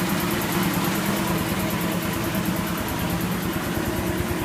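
Kellogg-American piston air compressor, driven by a three-phase electric motor, running steadily on a test run, with a rapid, even pulsing from the pump and a steady motor hum.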